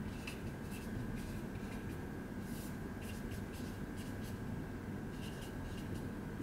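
Whiteboard marker scratching across a whiteboard in a string of short, irregular strokes as figures are written out, over a faint steady hum.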